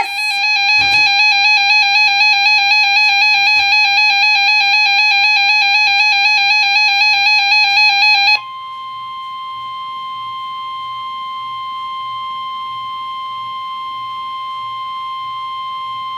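Weather radio alert: a loud warbling electronic alarm for about eight seconds, then, from just past the middle, the steady 1050 Hz NOAA Weather Radio warning alarm tone through the radio's speaker, signalling that a warning is about to be read.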